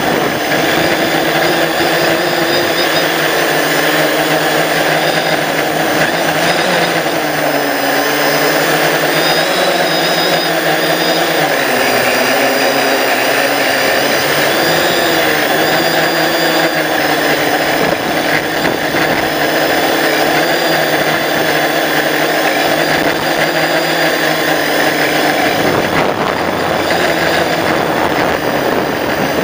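A drone's electric motors and propellers buzzing steadily in flight, close up from the drone's own camera, the pitch wavering up and down several times.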